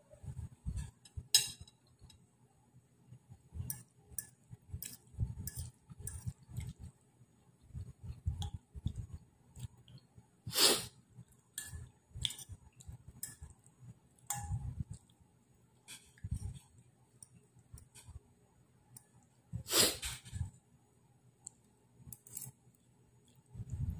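Close-up eating sounds: chewing and slurping of pancit noodles, in short irregular bouts, with a fork clinking on the plate now and then. Two louder mouth sounds stand out, about ten seconds in and again near twenty seconds.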